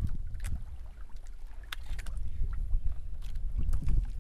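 Wind rumbling on the microphone and water lapping around a small outrigger boat at sea, with a few scattered sharp clicks.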